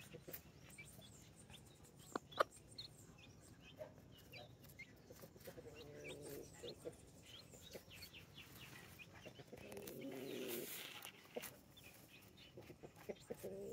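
Brahma mother hen clucking quietly and low to her chicks while foraging, in a few short runs. Scattered small clicks run through it, the sharpest about two seconds in.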